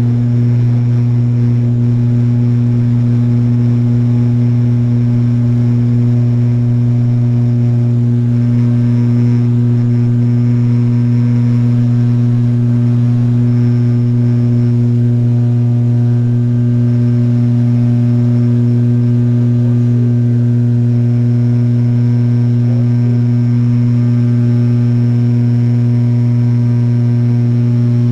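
Fokker 50's Pratt & Whitney Canada turboprop engines at takeoff power, heard from inside the cabin right beside a six-bladed propeller: a loud, steady low drone that holds one pitch through the takeoff and initial climb.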